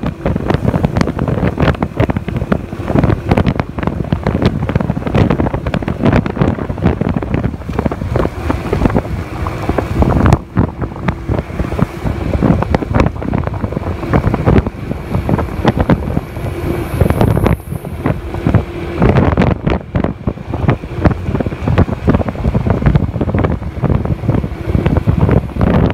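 Heavy wind buffeting the microphone of a moving scooter, gusting unevenly throughout, with a faint steady hum from the scooter underneath.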